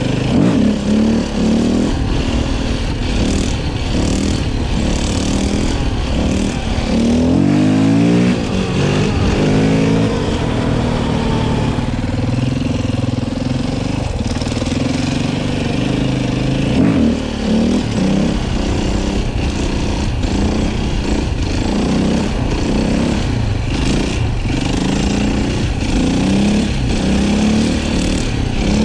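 KTM 450 EXC-F enduro bike's single-cylinder four-stroke engine under hard riding, the revs climbing and dropping again and again as the rider accelerates, backs off and shifts gears.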